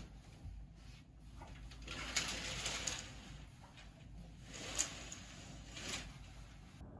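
Curtains being pulled open along their rail: several swishes of fabric sliding, the sharpest about five seconds in.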